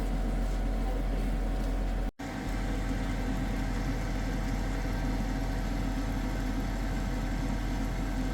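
A steady low machine hum, such as a kitchen appliance running, broken by a brief dropout about two seconds in.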